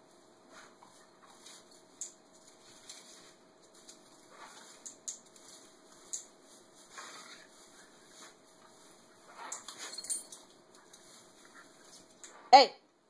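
Scottish terrier puppy sniffing and rustling at the branches of an artificial Christmas tree, with faint scattered clicks over a steady low hum, then one short bark near the end.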